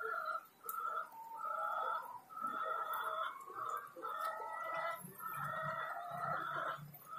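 Chickens calling over and over, with clucking and crowing in short repeated calls on a steady pitch. A low hum joins about five seconds in.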